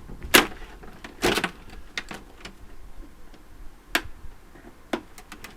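Wires being cut out of a portable air-conditioning unit: irregular sharp snips and clicks of cutters and metal parts. The loudest come about a third of a second in and just after a second in, with more about four and five seconds in.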